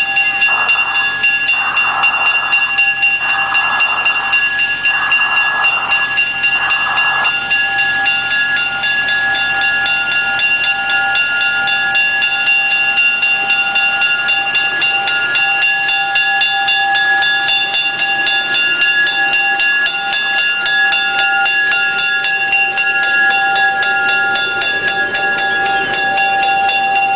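A 1949 General Electric diesel locomotive on two-foot narrow-gauge track runs past pulling passenger coaches, with a steady engine drone and whine throughout. Five short, evenly spaced signal sounds come in the first seven seconds as it approaches.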